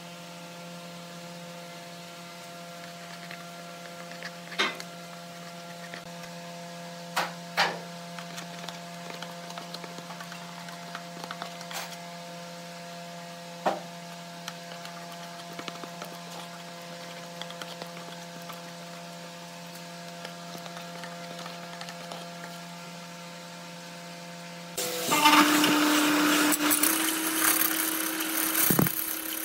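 Small metal wood lathe's electric motor running with a steady hum, with a few light clicks. About 25 s in, a hand-held turning chisel starts cutting the spinning epoxy resin blank, a much louder rough scraping.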